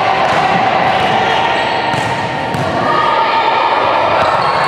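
Indoor volleyball rally in a reverberant sports hall: players' calls and voices over continuous court noise, with a sharp ball hit about two seconds in.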